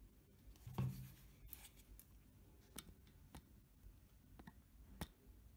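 Small parts being handled during assembly: a dull knock about a second in, then a few scattered light clicks and rubbing.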